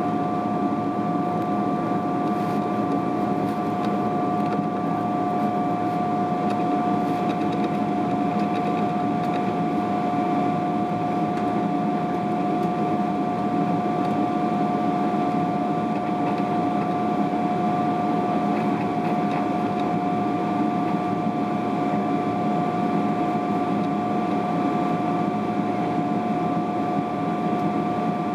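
Steady cabin noise inside a Boeing 777-300ER airliner: a constant drone of engines and rushing air, with two steady whining tones over it that neither rise nor fall.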